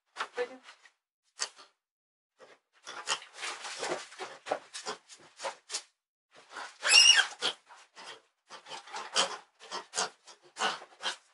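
Livestock being fed in a wooden barn: a run of short, irregular rustles and knocks of feed and pails being handled, with one brief high-pitched animal squeal about seven seconds in.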